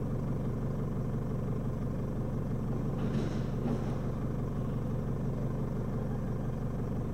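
Four-wheel-drive vehicle's engine running steadily at a constant low drone, with a brief burst of hiss about three seconds in.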